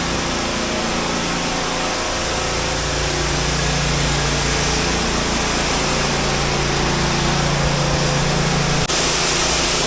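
A steady mechanical drone with a constant hiss, with a brief drop near the end.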